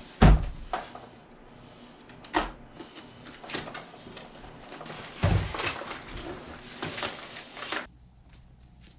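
Knocks and bumps of things being handled, the loudest just after the start and others about two and five seconds in, over a rustling hiss that stops suddenly near the end.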